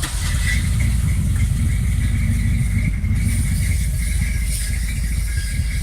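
Dodge pickup truck's engine running at a steady idle just after being cranked and started, a dense low rumble.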